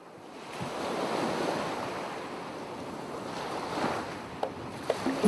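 Steady rushing noise like ocean surf, fading in over about a second and then holding, with two faint clicks near the end.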